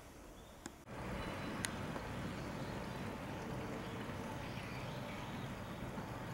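Quiet indoor room tone changes abruptly, about a second in, to steady outdoor background noise with a low rumble. A short click comes just before the change, and a sharper one shortly after it.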